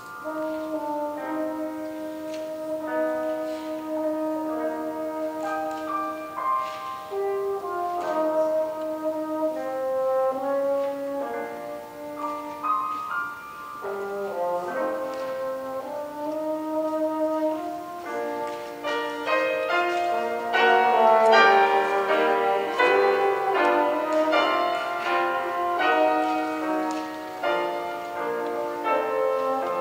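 French horn playing a melody of long held notes with piano accompaniment; the music grows fuller and louder about two thirds of the way through.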